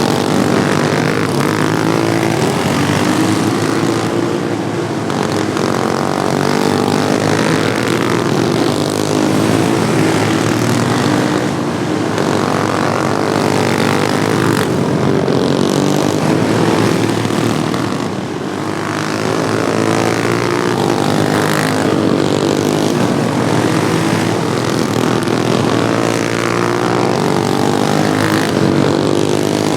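Engines of several modified Wheel Horse racing lawn mowers running hard together, their pitch rising and falling as they accelerate and pass, with a brief dip in level about two-thirds of the way through.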